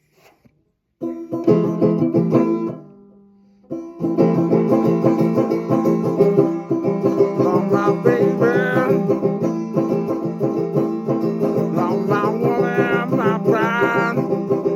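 A string band's instrumental intro. Plucked notes ring out about a second in and fade. After a short pause, fast, steady picking on plucked string instruments begins, with sliding high notes laid over it.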